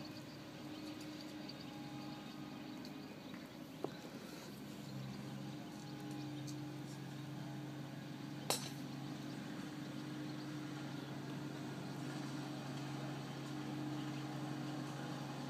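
Steady low engine hum, with a single sharp crack about eight and a half seconds in: a golf club striking a ball.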